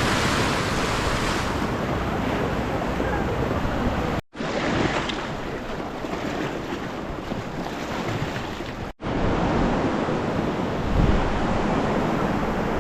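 Fast-flowing river water rushing, mixed with wind on the microphone. The sound cuts out completely for a moment twice, about four and nine seconds in.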